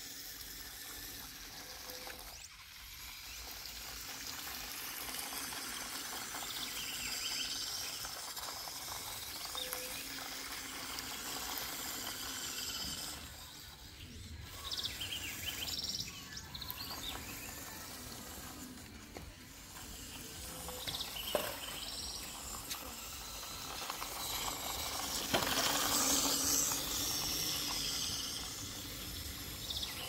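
Small electric RC monster truck driving through shallow puddles on wet concrete, with water splashing over a steady outdoor background noise. The splashing grows louder for a few seconds near the end.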